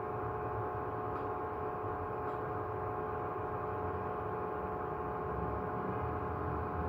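A steady electrical hum made of several fixed tones over a low rumble, with a couple of faint ticks.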